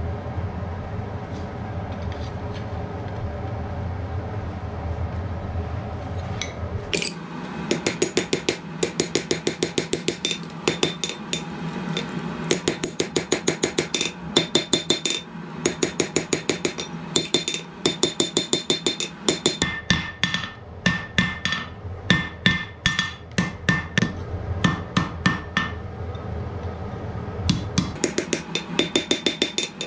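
Blacksmith's hand hammer striking red-hot rebar steel on an anvil: fast runs of blows, about four a second, in bursts with short pauses, each blow ringing off the anvil. A steady low hum fills the first several seconds before the hammering starts.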